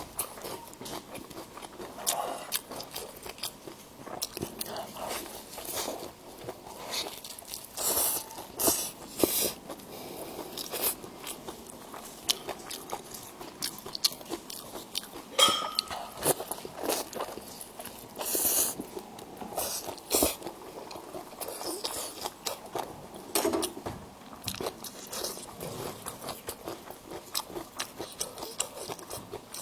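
Close-miked eating: irregular crunchy bites and chewing, with wet mouth sounds in between.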